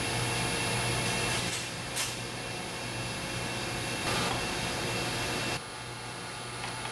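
Steady mechanical hum and hiss of background machinery, with a brief click about two seconds in and a short swell of noise about four seconds in. The noise drops suddenly in level a little past the middle.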